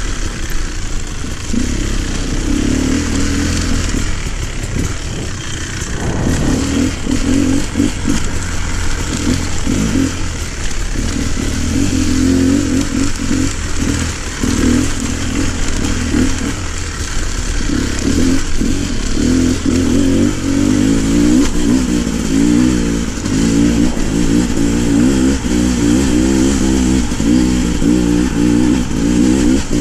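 Off-road motorcycle engine running under constantly changing throttle on a rough dirt trail, its pitch rising and falling as it revs up and backs off.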